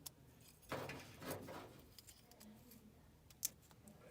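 Faint handling noise with a few short rustles and two sharp clicks, one at the start and one about three and a half seconds in.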